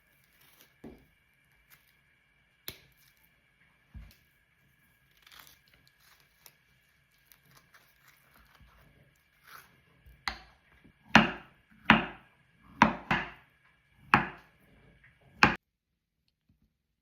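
Kitchen knife chopping on a cutting board: a few light taps, then about seven firm chops in quick succession in the second half.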